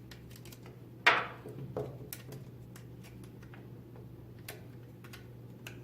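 Small screws, a lock nut and hand tools being handled on a workbench: a sharp clack about a second in, a smaller one just after, then a scatter of light ticks and clicks.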